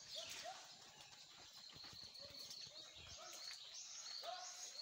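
Faint outdoor birdsong: many short high chirps mixed with repeated brief lower whistled notes, with a few small taps.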